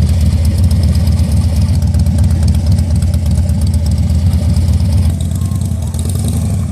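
Harley-Davidson Dyna Street Bob V-twin running steadily at idle through a custom-built aftermarket exhaust, a little quieter about five seconds in.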